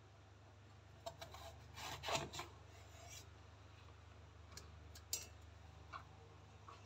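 A kitchen knife cuts through peeled eggplant on a wooden cutting board, and the cut pieces are pushed together on the board by hand. It comes as a few short, faint scrapes and cuts, the loudest about two seconds in.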